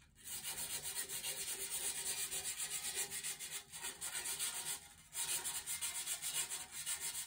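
Medium-grit sandpaper rubbed back and forth inside a carbon-fibre fork steering tube in quick rasping strokes, several a second, with two brief pauses. This roughs up the tube's inner wall so the epoxy will grip the reinforcing insert.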